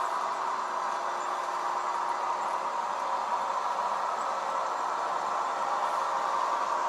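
H0e narrow-gauge model train running along the layout's track: a steady whirr of the small electric motor and wheels on the rails.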